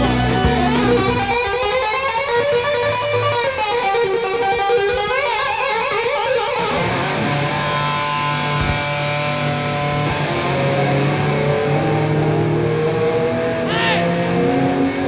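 Live rock band with an electric guitar playing lead: bent, wavering notes for the first several seconds, then longer held notes from about seven seconds in.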